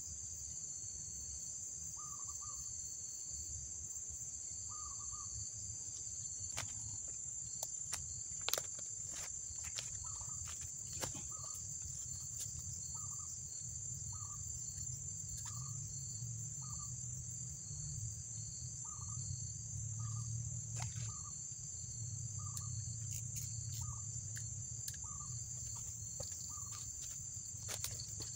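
Steady high-pitched trilling of insects such as crickets, with a bird giving short repeated calls about once a second and a few sharp clicks.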